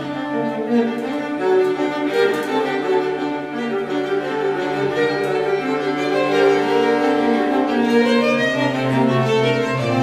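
Instrumental background music led by bowed strings, playing held notes.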